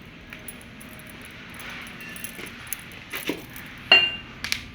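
Machined steel fitting parts clinking and knocking as they are handled and set down, several light clinks and one louder ringing clink near the end.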